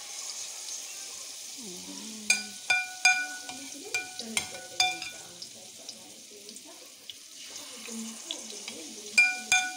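Oil sizzling steadily as okoy fritters shallow-fry in a frying pan. A metal spoon clinks against the pan with short ringing taps, six in quick succession in the first half and two more near the end.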